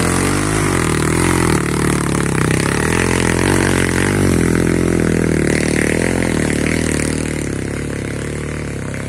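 Dirt bike engine revving hard under load as it climbs a trail, its pitch rising and falling with the throttle, then fading a little near the end.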